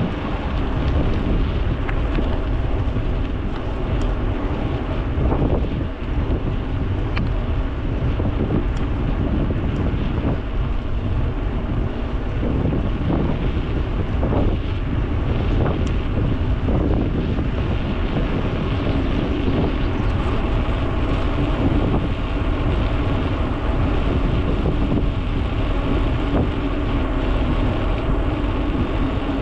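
Wind rumbling on an action camera's microphone while riding a bicycle, a steady low noise with the ride's rolling noise under it and a few faint ticks.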